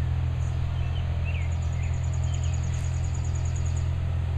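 Distant heavy truck or machine engine running with a steady low drone. Birds chirp over it, with a rapid high trill of about eight notes a second in the middle.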